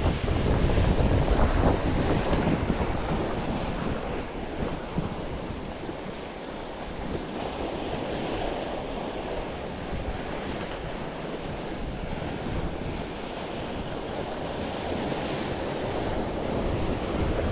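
Wind buffeting the microphone over the wash of sea waves, strongest in the first two seconds, then a steady rushing noise.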